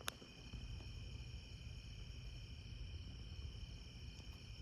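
Steady, faint chorus of night insects, crickets trilling continuously, with one sharp click just after the start.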